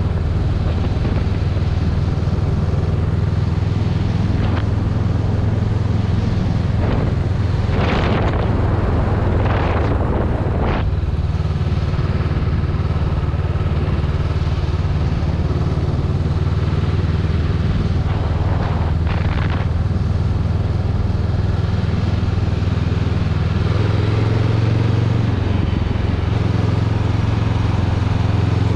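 Honda Rebel 500's parallel-twin engine running steadily at cruising speed, heard from the rider's position, with a few brief surges of rushing noise partway through and a slight change in the engine note near the end.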